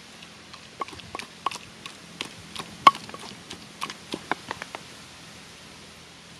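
Wooden pestle knocking and pounding in a clay mortar of wet chili paste: a dozen or so irregular knocks from about a second in to about five seconds in, one sharper and louder near the middle.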